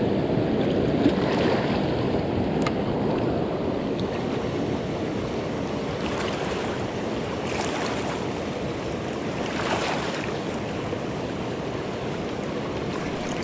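Choppy, fast-flowing river water rushing and lapping along a rocky bank, a steady wash of noise, with wind rumbling on the microphone.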